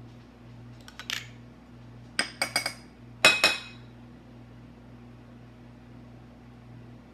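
A metal spoon clinking against dishware. A light click comes first, then a quick run of clinks, then a louder cluster of ringing clinks about three seconds in. A steady low hum runs underneath.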